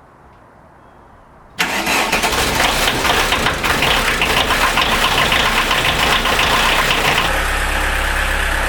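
Volkswagen Golf Mk2 engine starting about a second and a half in and running, then settling to a steadier idle near the end.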